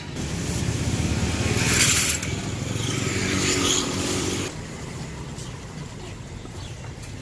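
Street traffic noise: a passing vehicle engine, loudest about two seconds in, that drops away suddenly after about four and a half seconds, leaving a quieter street hubbub.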